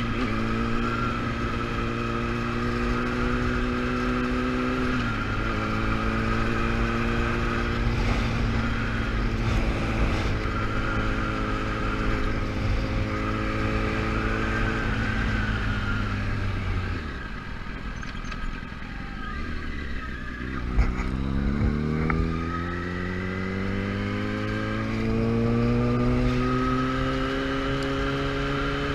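Sport motorcycle engine heard from the rider's seat on the move. It holds a steady cruising note with a small step up in pitch about five seconds in, then falls away and quietens in the middle. From about two-thirds through it climbs again in rising sweeps as the bike accelerates. A steady rush of wind lies under it.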